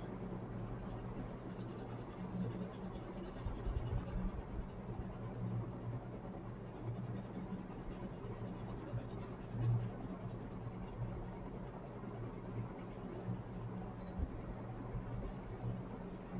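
Colouring pencil scratching softly and steadily on paper as an area is shaded in, over a faint low hum.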